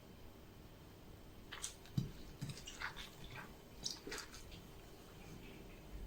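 Faint scattered clicks and rustles, with one soft knock about two seconds in: small handling sounds.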